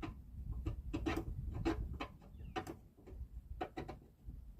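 A string of sharp clicks and knocks, irregular and about two a second, over low handling noise: hand tools working on the metal bolts and brackets of a pop-up camper's lift mechanism.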